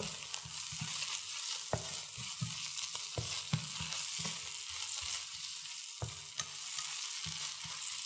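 Onions and tomato paste sizzling in oil in a frying pan while being stirred, the utensil knocking and scraping against the pan at irregular moments.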